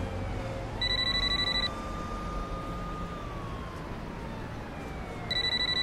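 Siren wailing slowly up and down. Over it, a trilling electronic ring sounds twice: a short burst about a second in and a longer one near the end.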